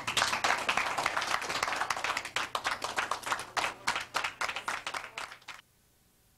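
Audience applauding, a dense stretch of clapping that cuts off abruptly about five and a half seconds in.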